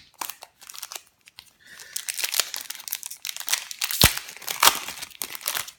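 A foil Pokémon booster pack wrapper being torn open and crinkled in the hands, a dense irregular crackling, with a single sharp knock just after the middle.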